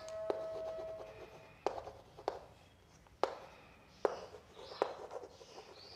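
Chalk writing on a chalkboard: about six sharp taps as the chalk strikes the board, with faint scratching strokes between them. A steady tone dies away about a second in.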